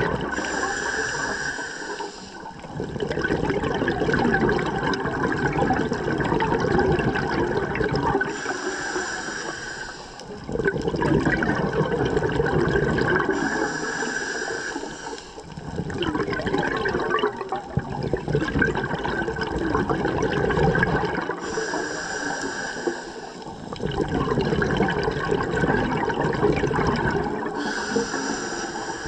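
A scuba diver breathing through a regulator: a short hiss on each inhalation, then a long rush of exhaled bubbles, repeating about every six to seven seconds, five breaths in all.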